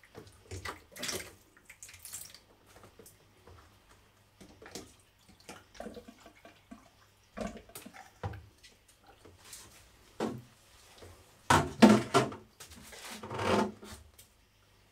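Water being drawn out of a self-watering pot's reservoir with a hand pump and running into a saucer: irregular splashing and gurgling, with the loudest bursts near the end. The water is the murky flush water that carries the dirt out of the freshly potted mineral substrate.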